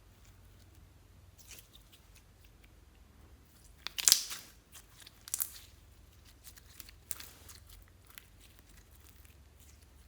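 Slime being handled by hand: a few short crackling, squelching pops, the loudest about four seconds in, with two smaller ones after it.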